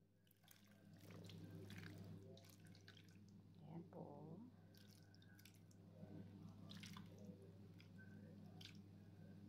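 Faint dripping and small wet clicks as an oily garlic-and-oregano marinade is poured from a plastic bowl over raw chicken and potato slices, over a steady low hum.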